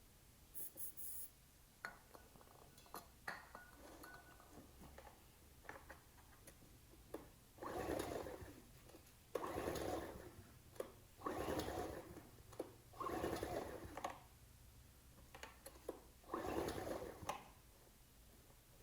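Ryobi RIG1000 inverter generator being pull-started on starting fluid: five pulls on the recoil starter, each about a second long, cranking the engine over without it starting. Light clicks and knocks come between the first pulls.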